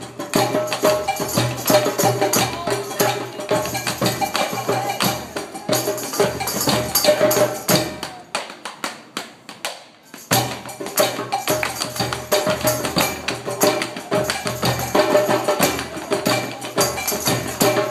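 Tap dancing to live band music: rapid tap-shoe clicks over a stepping bass line. The music drops to a brief lull about halfway through, then the band and taps pick up again.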